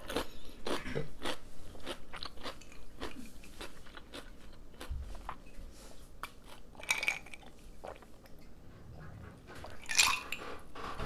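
Close-up crunchy chewing of raw cucumber, dense at first and thinning out, followed by a few swallowing sounds while drinking from a mug.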